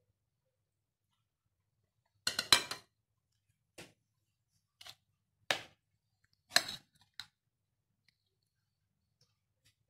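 Serving spoons knocking and clinking against a glass bowl and a plate: a quick cluster of sharp knocks about two and a half seconds in, then five single taps spread over the next five seconds.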